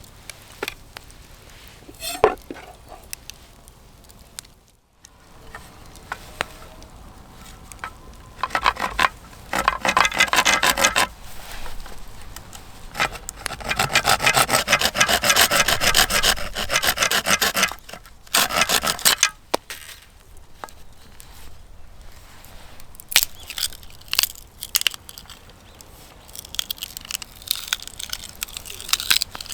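Wood being scraped in quick, rhythmic strokes, in two spells of a few seconds each, with a few sharp knocks in between.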